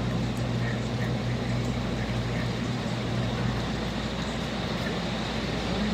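Heavy thunderstorm rain and wind, a steady rush of noise heard from indoors through a window, with scattered drops tapping. A low steady hum runs under it and stops a little past halfway.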